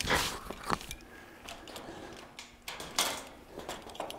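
Clinks, knocks and scuffs of climbing hardware, rope and boots against a steel tower and grated platform as a climber hauls himself off the rope and up onto the platform, with a burst of them at the start and more about three seconds in.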